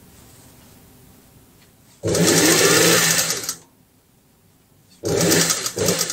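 Industrial sewing machine stitching in two runs: about two seconds in it runs for a second and a half and stops, then starts again a little over a second later and keeps going.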